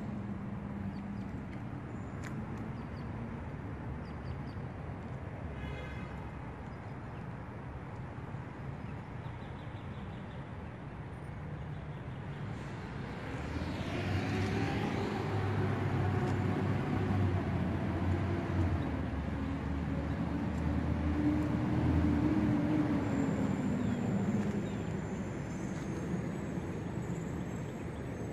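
Outdoor street ambience with a steady traffic hum. A motor vehicle's engine passes, rising in pitch and loudness past the middle and fading away near the end.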